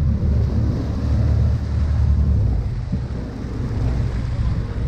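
Steady low rumble of a sportfishing boat: engine drone and wind buffeting the microphone, with water washing along the hull.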